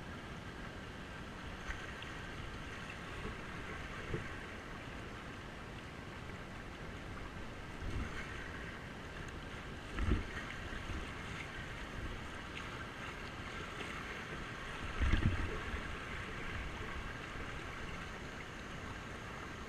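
Stream water rushing and splashing over a shallow riffle around a drifting kayak, steady throughout. A few low thumps stand out about 8, 10 and 15 seconds in, the last the loudest.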